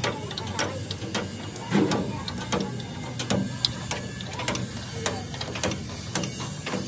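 Irregular sharp metallic clicks and knocks, one or two a second, from hand-tool work on metal, over a steady low hum.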